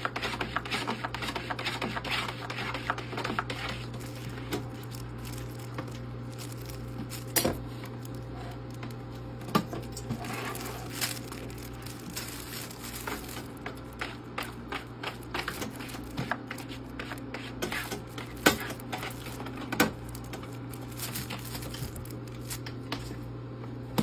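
Countertop ice maker running with a steady low hum, while a cat's paws and claws tap, knock and scrape at its stainless steel housing every second or so.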